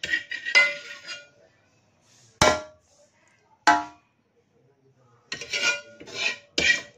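Metal spoon scraping and knocking against a steel pot as masala is spread over a layer of rice. There is a run of quick ringing scrapes, two sharp ringing clanks in the quiet middle, and another run of scrapes near the end.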